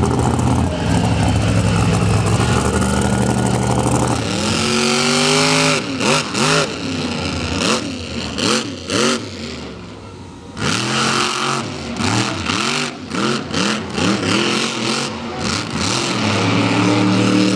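Monster truck engine running hard at steady revs, then revved in quick repeated throttle blips, its pitch rising and falling many times, with a short lull about ten seconds in.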